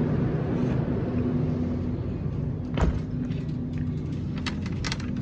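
Steady low hum of a store's refrigerated cooler, with one dull thump about three seconds in, then light clicks and rustles as a carton of milk is handled and set into a shopping cart.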